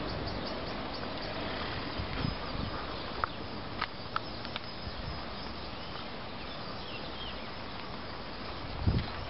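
Steady outdoor background hiss, with a few short bird chirps around the middle. A low rumble of wind on the microphone comes near the end.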